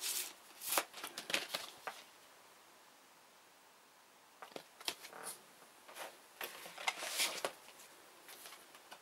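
Rustling and clicking of record sleeves and packaging being handled, as a vinyl LP and its printed paper inner sleeve are moved about. The sounds come in two stretches with a quiet pause of about two seconds between them.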